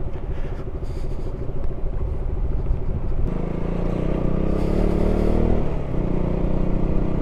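Motorcycle engine running steadily under way. About three seconds in, the engine note grows louder and fuller as it pulls harder, then eases back about six seconds in.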